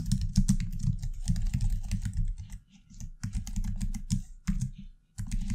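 Typing on a computer keyboard: quick runs of keystrokes broken by short pauses about halfway through and near the end.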